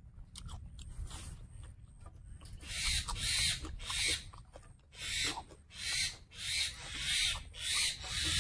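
Close-miked, wet open-mouth chewing of a mouthful of fried pork and rice, with a smack about every two-thirds of a second from about three seconds in.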